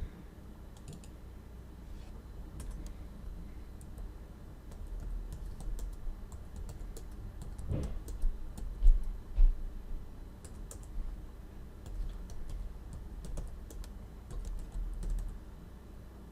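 Typing on a computer keyboard: irregular keystrokes with pauses, a few louder strokes about halfway through.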